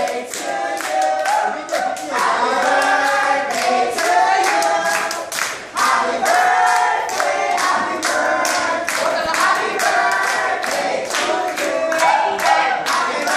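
A crowd singing a birthday song together, with hands clapping along to the beat.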